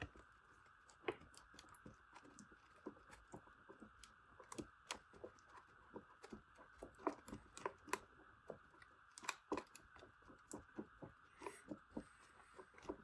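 Faint, irregular small clicks and scrapes of two-part five-minute epoxy being mixed together by hand, over a faint steady background hiss.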